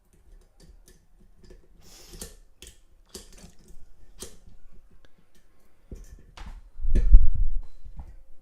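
Thin metal wires scraping and clicking against the inside of a Yale 4-lever padlock while it is being picked: scattered small ticks and short scratchy scrapes. A louder dull thump about seven seconds in, the loudest sound.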